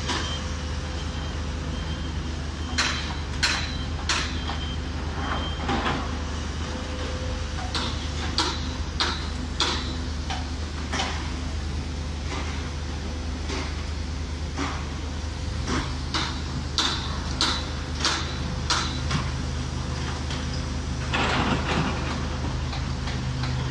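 Heavy construction machinery running with a steady low engine drone, with repeated sharp metallic clanks and knocks throughout. An intermittent high beep sounds in the first few seconds, and the engine note rises slightly about two-thirds of the way through.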